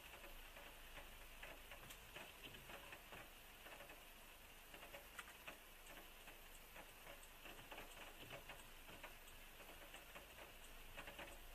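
Faint, irregular tapping of raindrops on the car's windshield and roof, heard from inside the cabin.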